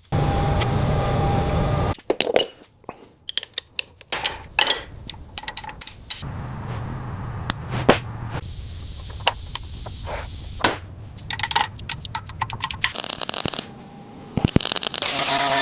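Workshop sounds of bike restoration work: a string of sharp metallic clicks and clinks from tools and parts, broken by stretches of steady scraping or hissing noise.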